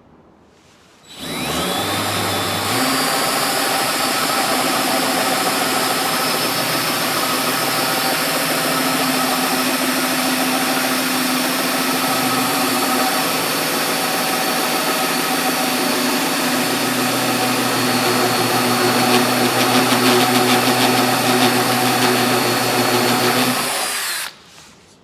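Power drill boring through a wooden door with a hole saw from a door-lock kit, enlarging the hole for a deadbolt. The motor spins up about a second in, runs steadily under load, and stops shortly before the end.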